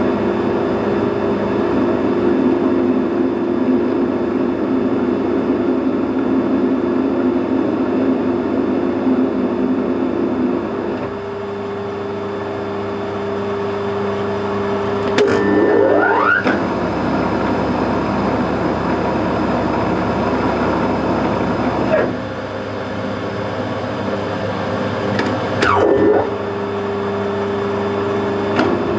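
Metal lathe running steadily with a motor and gear hum while a carbide threading insert cuts an 11 TPI thread in bronze, cleanly and without chatter, the work held on a tailstock centre. Twice the motor's pitch sweeps briefly, rising about halfway through and falling near the end, as the lathe's speed changes between threading passes.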